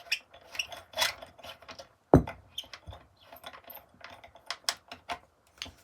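A Phillips screwdriver backing out the top screw of a Kirby Sentria 2 vacuum's handle: a run of small clicks and scrapes of tool and parts, with one sharp knock about two seconds in.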